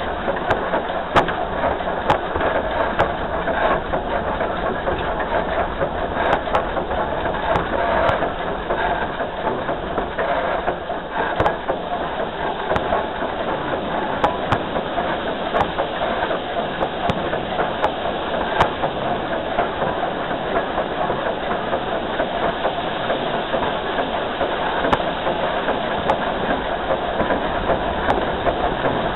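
Dollywood's narrow-gauge steam locomotive No. 192, a Baldwin 2-8-2, rolling along the track: a steady rumble and rattle of wheels on rail, with frequent sharp clicks over the rail joints, heard close up from the engine's front end.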